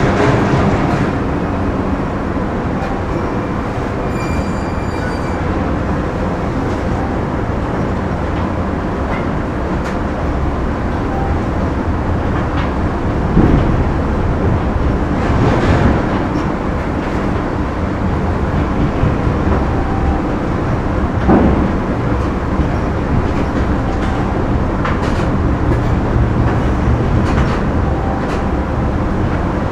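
Factory machinery running: a steady, dense industrial rumble with occasional louder clanks, the loudest about a third of the way in and again about two-thirds in.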